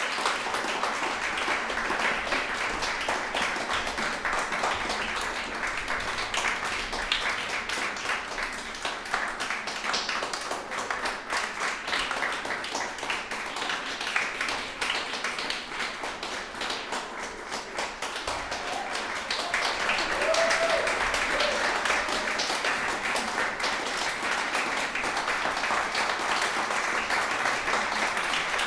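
Audience applauding, thinning slightly midway and swelling again about two-thirds of the way through, with a few voices calling out over the clapping.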